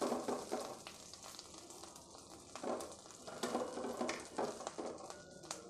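Curry leaves in a little oil in a pan, sizzling quietly on low flame as they dry out, stirred in a few strokes that rustle and scrape the leaves against the pan.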